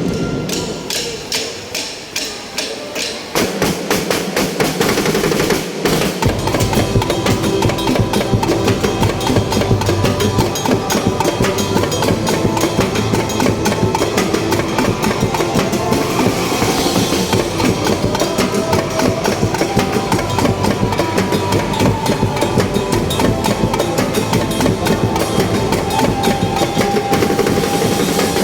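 Drum band playing a fast, dense rhythm of rapid strikes on snares and other drums. About six seconds in, the low drums come in and the full ensemble plays on.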